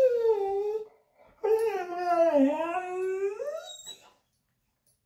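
Dog howling in two long, wavering calls. The first trails off about a second in; the second runs from about a second and a half in to about four seconds.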